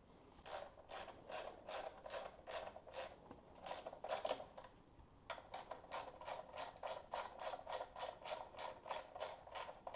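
Hand ratchet wrench clicking as it is swung back and forth to run down a bolt on the engine's intake, about three clicks a second, with a short pause about halfway through.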